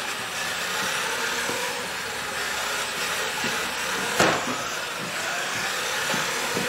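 Robotic Red Cat radio-control car's motor and drivetrain running steadily as it drives on carpet, with one sharp knock about four seconds in.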